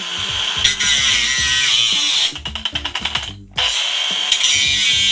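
Old brushed Milwaukee angle grinder with a cut-off wheel, forced hard into a cut to try to bog the motor down. The cutting noise breaks into a fluttering pulse about two and a half seconds in and drops out for a moment, then comes back at full level.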